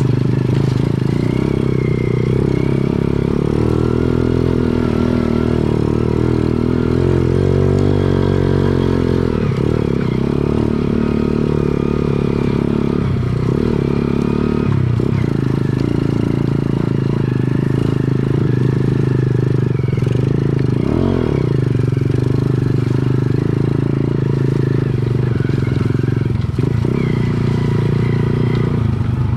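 Underbone motorcycle engine running steadily, its pitch rising and falling slightly with the throttle.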